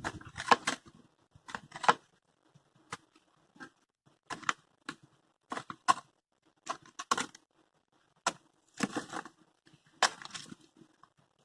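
Dry sticks and vines snapping and dried clay cracking as the structure is broken apart by hand: irregular sharp cracks and snaps, some in quick clusters.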